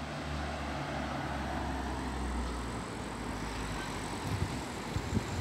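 A motor vehicle's engine running past, a low hum that fades out about three seconds in, over a steady rushing background noise; a few low bumps near the end.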